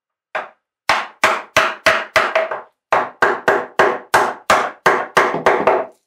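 Round wooden carver's mallet driving a chisel into timber: about sixteen sharp blows, roughly three a second, with a short pause partway through.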